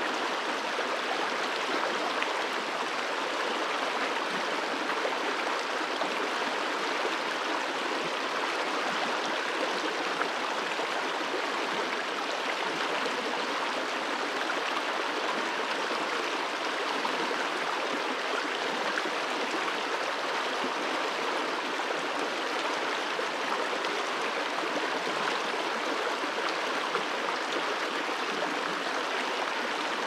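Shallow stream running over stones and gravel: a steady, even rush of water with no deep rumble.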